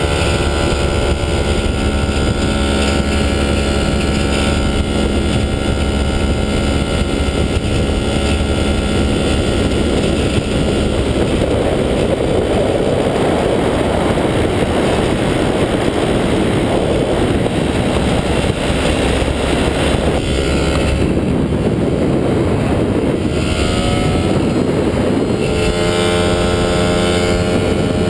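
Falcon XP ultralight's engine and propeller droning steadily in flight, with wind rushing over the microphone. The engine note turns rougher in the middle and shifts in pitch near the end.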